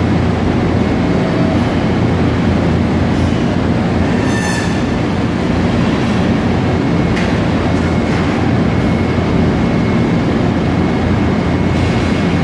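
Factory machinery running around a robot cell: a steady, loud low rumble and hum with a faint high whine, and a few short hisses about four, seven and nine seconds in.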